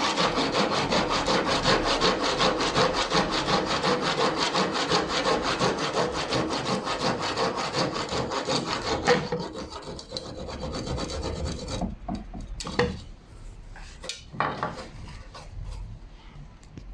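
Wood being worked by hand with fast, even back-and-forth strokes, a rasping, sawing sound that stops about nine seconds in. A few light knocks of wood follow near the end.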